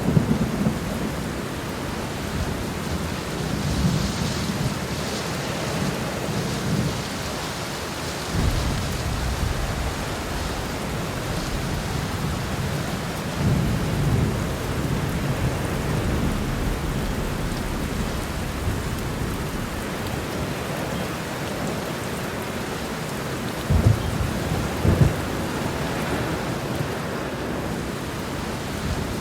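Steady heavy rain with thunder rumbling low again and again, swelling and fading every few seconds, and two sharper thunderclaps close together about 24 seconds in.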